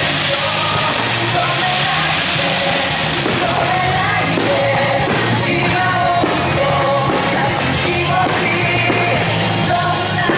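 Rock song with sung vocals and a driving beat, played loudly and steadily; sharp hits cut through it from time to time.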